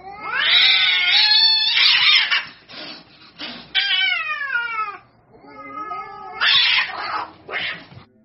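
Domestic cats in a standoff, caterwauling: long wavering yowls that slide up and down in pitch, broken twice by loud hissing.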